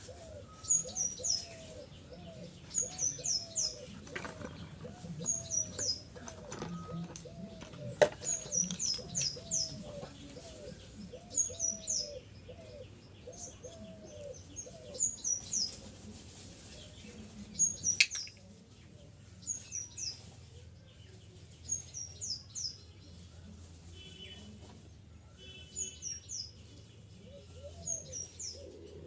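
Small birds chirping in short, quick high phrases every second or two, with a lower call repeating steadily underneath; two sharp clicks stand out along the way.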